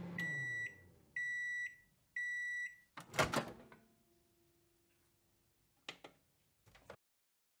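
Microwave oven finishing: its running hum winds down, then three beeps of about half a second each. The door latch pops open with a loud clunk, followed by two short clicks near the end.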